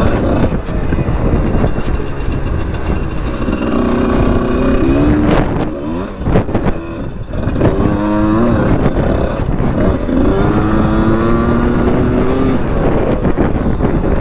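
Husqvarna SMS 125 dirt bike engine revving under throttle while riding, its pitch climbing and falling off several times, with a brief easing off in the middle and revs held steady near the end. Wind buffets the unshielded camera microphone throughout.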